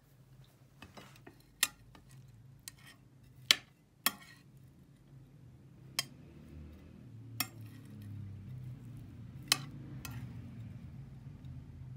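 Metal spoon clinking against ceramic plates and serving dishes as rice and food are dished out: about six sharp, separate clinks, over a low steady hum that grows louder about halfway through.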